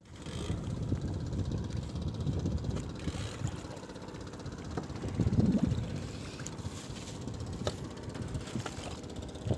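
Wind buffeting the microphone over open sea, an uneven low rumble that swells about five seconds in, with a few faint ticks.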